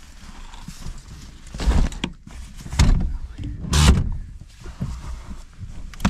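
Three loud thuds about a second apart, with softer knocks between them: a car's door and gear being handled as someone gets in.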